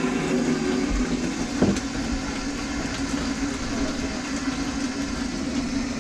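Electric drain-cleaning machine running steadily, its cable turning in the kitchen drain line to break up a grease clog, with one short knock partway through.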